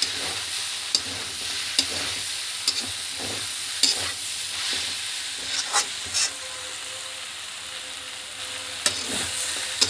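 Cabbage and potato curry sizzling in hot oil in a metal kadai while a metal spatula stirs it, with sharp clinks and scrapes of the spatula against the pan. The vegetables are being dry-fried with chilli and cumin powder before any water goes in. The stirring stops about two-thirds through, leaving the sizzle.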